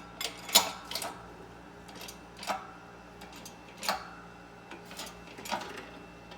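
Metal parts clinking and tapping as a socket and plates are positioned on a hydraulic press: a sharp clink about half a second in, the loudest, then single clinks every second or so, some ringing briefly.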